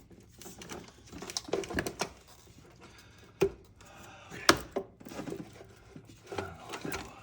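Irregular knocks, clicks and rattles of an engine's upper intake plenum being worked loose by hand, with two sharper knocks midway.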